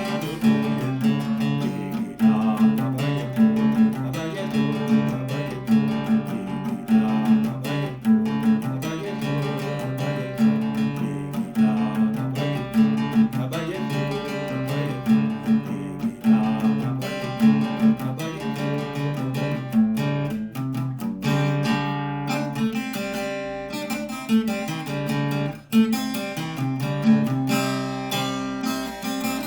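Music led by a strummed acoustic guitar, with a steady repeating rhythm.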